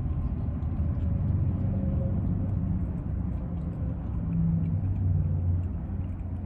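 Low, steady vehicle rumble, swelling a little about four to five seconds in.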